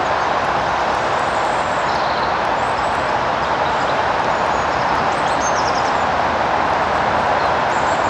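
Steady rushing outdoor noise with no rhythm, with faint high bird chirps a few times: about two seconds in, around five seconds in, and near the end.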